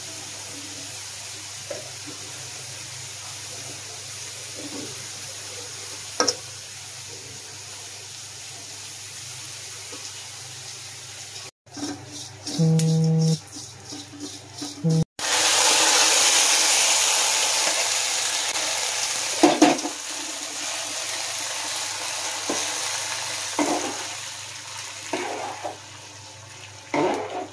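Onions frying in oil in a wide pan, a steady sizzle with an occasional scrape of the spatula. About halfway through, a much louder sizzle starts suddenly as cumin seeds are fried and fades over several seconds. Near the end, a thick lentil mixture is stirred with a spatula that knocks against the pot a few times.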